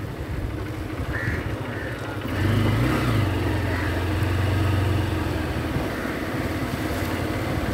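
Motorcycle engine running while riding slowly, picking up revs about two and a half seconds in and then holding a steady hum before easing off slightly.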